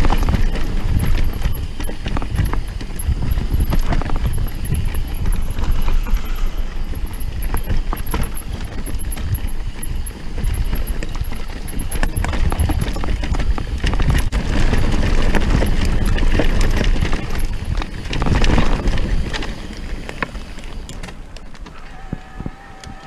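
Mountain bike descending a rough, rocky forest trail: tyres crunching over dirt and stones and the bike rattling over the bumps, with wind rumbling on the microphone. It gets clearly quieter near the end as the trail smooths out.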